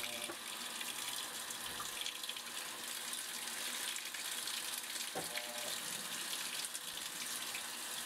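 Water running steadily into the tub of a Kenmore 22352 top-load washing machine during its auto water-level sensing fill, the stage where the washer alternates short turns of the load with adding water.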